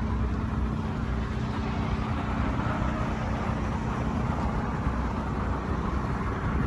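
Steady low rumble of vehicle engines and traffic, with a faint steady hum.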